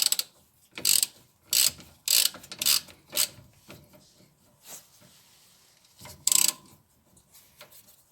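Ratchet wrench clicking in short bursts as brake caliper bolts are tightened down, with pauses between the strokes.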